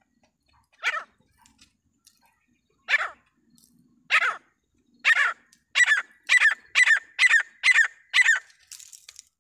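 Francolin (teetar) calling: harsh, loud notes about a second apart, quickening about five seconds in into a rapid run of six or so notes roughly half a second apart.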